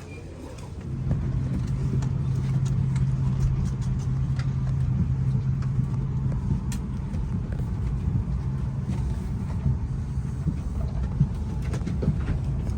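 A loud, steady low rumble with a constant low hum, starting about a second in, with light clicks and knocks over it.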